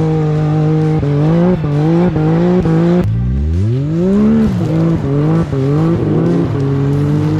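Side-by-side UTV engine running at high revs, its pitch climbing in short steps, then sweeping up and back down once in the middle before settling into a steady note.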